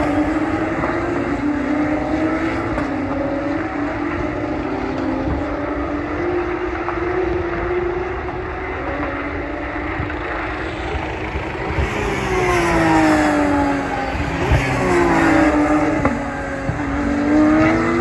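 Porsche Carrera Cup race cars' flat-six engines at racing speed, a pack of several cars whose note drifts and fades as they pull away. From about two-thirds of the way in, more cars come near and pass, their engine pitches rising and falling across each other.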